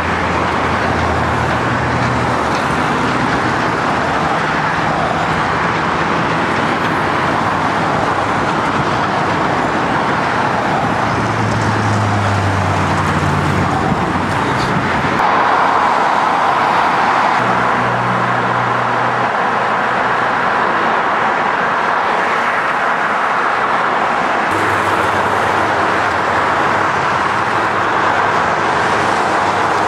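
Steady city road traffic noise, cars and other motor vehicles passing, with low engine hums that come and go. The sound changes abruptly about halfway through.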